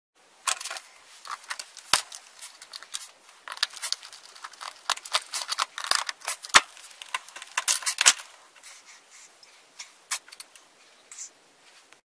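Needle-nose pliers working the steel wire springs off a wooden snap mousetrap: a quick run of sharp metallic clicks and clinks, thickest in the middle and thinning out toward the end.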